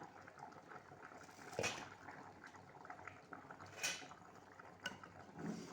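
A pot of tomato broth with potatoes and macaroni bubbling at the boil, with a steady faint crackle and a few sharper clicks, the loudest about one and a half and four seconds in.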